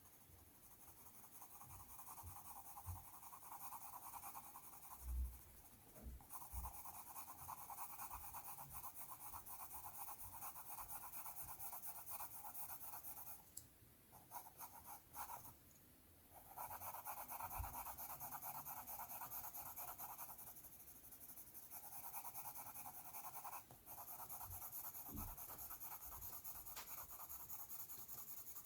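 Coloured pencil shading on paper: a faint, continuous scratchy rubbing of quick back-and-forth strokes that stops briefly a few times, with a couple of soft knocks near the start.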